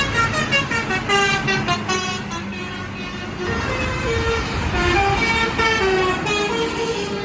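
Indonesian 'telolet' bus horn playing a melody of short pitched notes that step up and down several times a second, over a low rumble.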